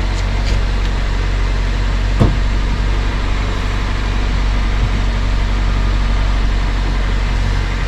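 2005 Toyota Corolla LE's four-cylinder engine idling steadily, keeping the brake booster working while the brake pedal is held down to pressurize the freshly bled brake system. A single sharp knock about two seconds in.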